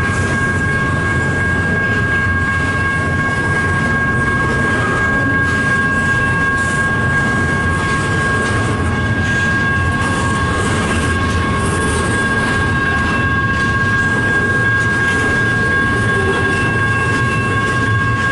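A long freight train of double-stack intermodal container cars rolling past at close range, a loud steady rumble of wheels on rail with a steady high-pitched tone over it.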